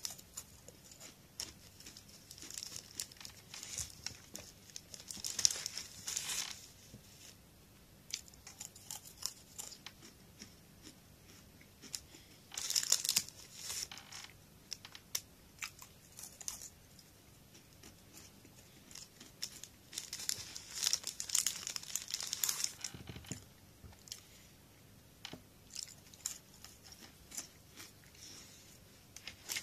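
Crunching and chewing of thin crunchy snack sticks, mixed with the crinkle of a plastic snack wrapper. The sounds come in irregular crackly bursts a few seconds apart, with the longest and loudest about a third and two-thirds of the way through.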